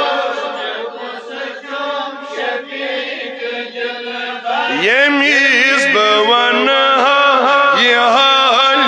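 Male voices chanting a devotional hymn over a steady drone. The first few seconds are quieter and more ragged, then about halfway through a voice sweeps up into a loud, held melodic line.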